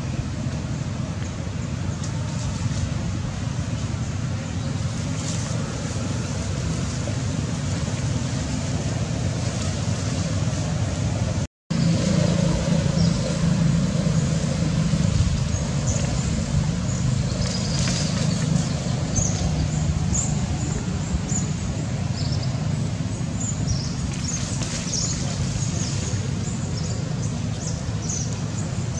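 Steady low rumbling outdoor background noise, cut off for an instant about eleven and a half seconds in and a little louder afterwards, with scattered faint short high ticks in the second half.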